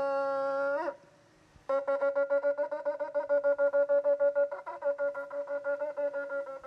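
Shofar blown: a long held blast that slides upward and breaks off just under a second in, then, after a short pause, a long run of quick short blasts on the same note, several a second.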